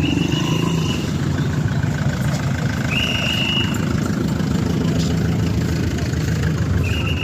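Motor vehicle engine running steadily with a low rumble. Three short, high, steady tones sound over it: one at the start, one about three seconds in and one near the end.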